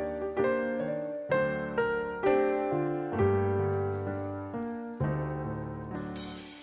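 Slow background keyboard music: chords struck and left to fade, a new one every second or so.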